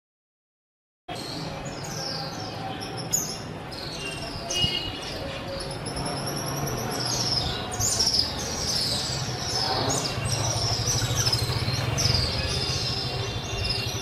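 Many birds chirping and calling at once, a dense overlapping chatter of short high calls, starting about a second in, over a steady low rumble.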